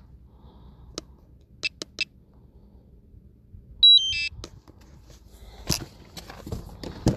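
A short electronic beep sequence about four seconds in: one high steady beep, then a quick run of stepped tones. It is the loudest thing here. A few sharp clicks come before it, and scuffing handling noises follow near the end.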